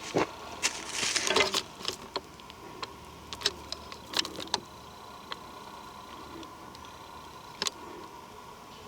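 Scattered light cracks and crunches of twigs and forest litter underfoot, clustered in the first few seconds, then a quiet stretch and a double click near the end.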